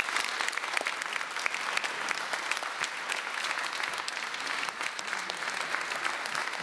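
An audience applauding steadily, with many overlapping hand claps.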